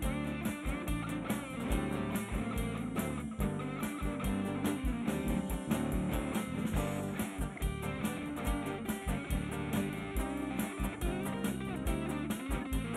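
Live band playing without vocals: two electric guitars and an electric bass over a drum kit, with the bass drum hitting all the way through.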